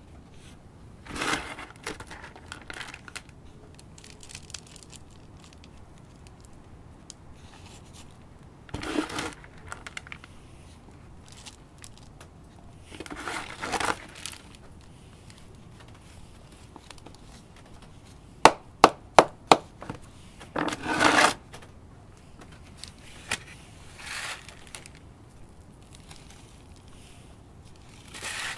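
Hands scooping and pouring coarse granular potting mix into a plastic orchid pot, the grains crunching and rustling in a few short bursts. About two-thirds of the way through comes a quick run of five sharp taps.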